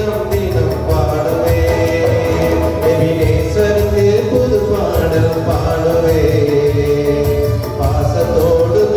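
A man singing a Christian worship song, holding and gliding between long notes, over instrumental backing with a steady beat.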